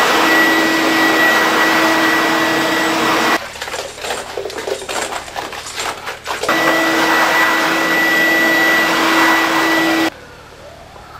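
Single-disc rotary floor scrubber-polisher running with a steady whine. It drops out for about three seconds of quieter, uneven knocks in the middle, comes back the same, and cuts off sharply near the end.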